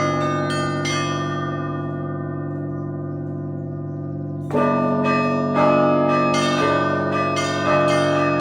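Russian Orthodox trezvon: church bells rung in a quick rhythmic peal, the small bells struck over the hum of the larger bells. The strokes pause for about three and a half seconds while the bells ring on and fade, then the full peal comes back in with a loud stroke about halfway through.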